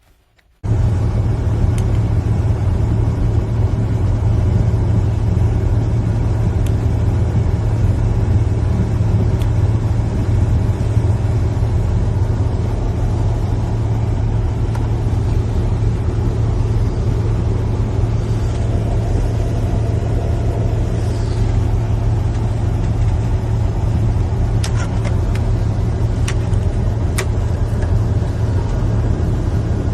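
Steady, loud low rumble of a running motor or engine, cutting in abruptly about half a second in and holding constant, with a few faint clicks near the end.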